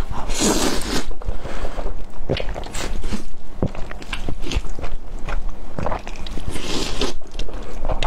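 Close-miked eating of sauce-coated Buldak fire noodles: wet chewing and lip smacks, with two longer slurps of noodles being drawn in, about a second in and again near the end.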